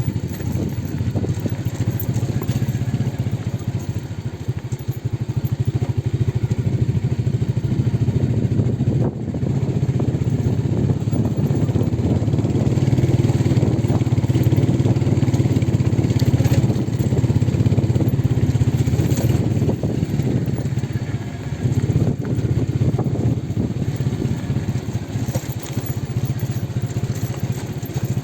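A vehicle engine running steadily with a low hum and road noise as it drives along, dipping briefly about nine seconds in.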